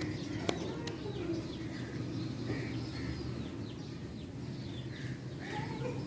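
A flock of domestic pigeons cooing as they feed, a steady low warble, with one sharp click about half a second in.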